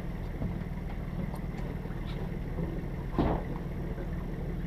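Sailing yacht's inboard engine idling steadily, with a single thump about three seconds in.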